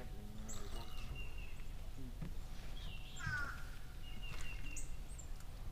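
Wild birds calling: a descending call about three seconds in, with short thin whistles and brief high notes around it, over a steady low background rumble.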